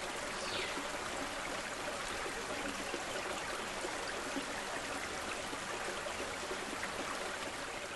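Steady flowing water, like a stream or small cascade running without a break.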